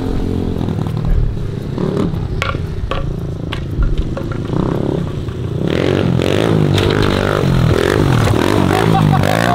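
Pit bike engine being ridden and revved up and down repeatedly, the revving strongest in the second half. Scattered knocks and scrapes sound over it in the first few seconds.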